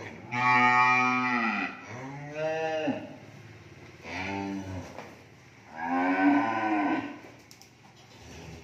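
Cattle mooing: four long calls, each rising and then falling in pitch, the first and the last the loudest.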